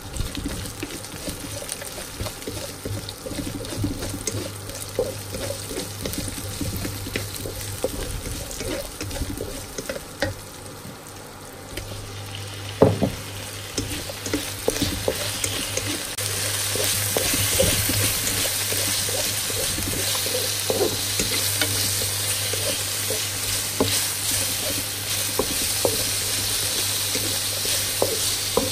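Wooden spatula stirring and scraping onions, spring onions and garlic frying in oil in a wok, with a sharp knock about 13 seconds in. Once octopus pieces are added, the sizzling grows louder and steadier. A low steady hum runs underneath.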